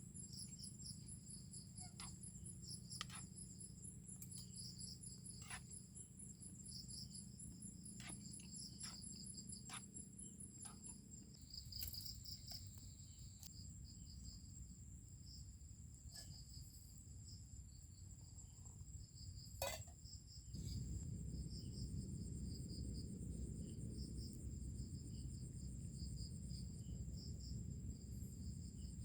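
Evening chorus of crickets and other insects: several overlapping high trills, some pulsing and one steady, over a low rush that grows louder about two thirds of the way in, with a few faint ticks.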